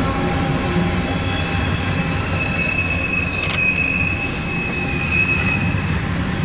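Freight cars of a loaded CSX coal train rolling past with a steady rumble. About two and a half seconds in, a high steady wheel squeal sets in and holds: flange squeal as the cars take the curve onto the west leg of the junction.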